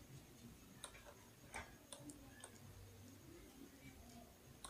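Faint computer mouse clicks, about five short sharp ticks at uneven intervals over near-silent room tone, each click placing a point of a knife-tool cut across the mesh.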